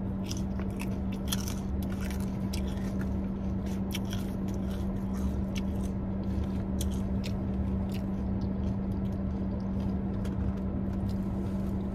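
Close-miked mouth sounds of eating: chewing, biting and smacking, with many small sharp clicks, over a steady low hum.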